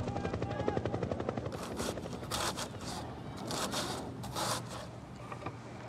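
A knife slicing through a cabbage head on a wooden cutting board: about six short cutting strokes, each a fraction of a second, between about a second and a half and nearly five seconds in. Over the first second and a half, a rapid pulsing fades away.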